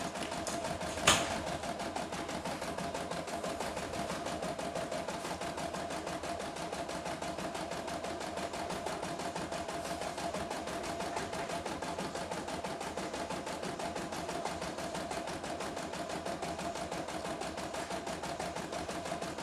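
CNY E960 computerised embroidery machine stitching a design: a steady, fast needle chatter with a held hum underneath. One sharp click sounds about a second in.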